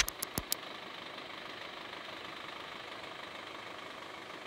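A vehicle engine running steadily, an even low hum.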